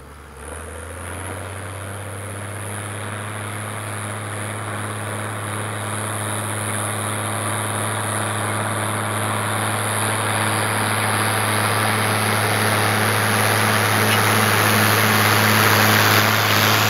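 International Harvester 956 XL tractor's six-cylinder diesel running under steady load as it pulls a stubble cultivator, drawing closer so that it grows steadily louder.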